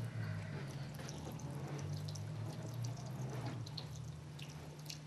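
Tap water splashing into a ceramic washbasin, with scattered drips and small splashes, over a steady low hum.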